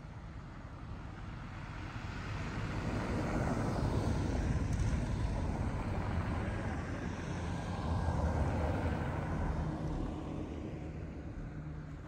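A vehicle passing by: a low engine rumble that swells, is loudest in the middle and fades away toward the end.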